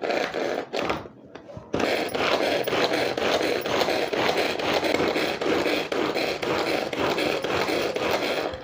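Hand-pulled string vegetable chopper worked with fast repeated pulls, its blades spinning through onion inside the plastic bowl with a dense, rapid rattle. It pauses briefly about a second in, then runs without a break until it stops near the end.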